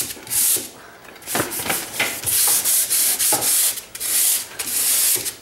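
Sandpaper (100 grit) on a hand sanding pad rubbing over dried drywall joint compound in light back-and-forth strokes, a quick series of short hissing passes with a brief pause about a second in.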